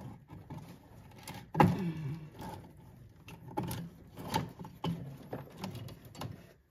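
Old wiring being pulled and handled behind a VW Karmann Ghia's dashboard: rustling and scattered clicks and scrapes of wires and connectors, with a short vocal sound about one and a half seconds in.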